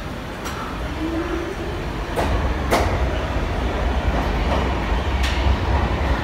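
New York City subway train pulling out of the station. A low rumble builds as it gets under way, with a short rising whine near the start and a few sharp clacks from the wheels over the rail.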